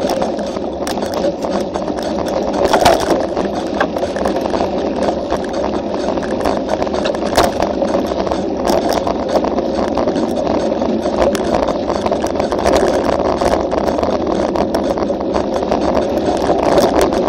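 Mountain bike riding fast down a bumpy dirt trail, heard from a camera mounted on the bike: a steady rumbling rush of tyres and air, broken by many short knocks and rattles as the bike jolts over the ground.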